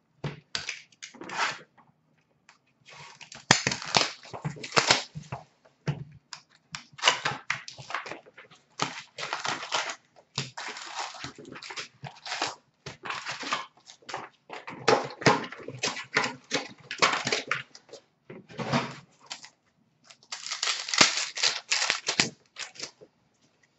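Plastic shrink wrap being slit and peeled off an Upper Deck hockey card box, then the box opened and its foil packs taken out: irregular bursts of crinkling and crackling with short pauses between them.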